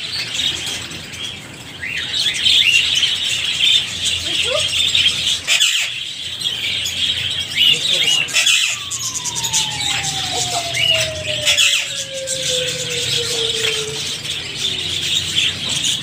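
Many caged parakeets, budgerigars and Indian ringnecks, chirping and chattering in a dense, continuous din. About halfway through, a separate long tone slides slowly downward for several seconds.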